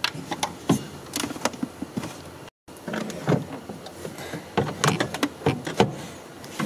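BMW E90 factory sound amplifier's aluminium housing being worked loose by hand in its plastic mounting bracket: an irregular string of clicks, knocks and scraping as it is pushed and wiggled forward, with a brief gap about two and a half seconds in.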